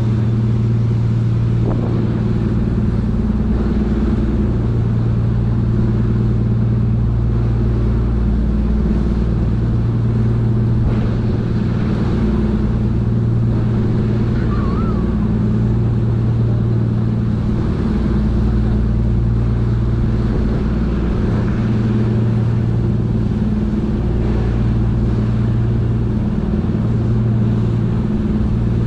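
Wonder Naruto sightseeing boat's engines running steadily under way, a loud even low drone, with the rushing of its churning wake.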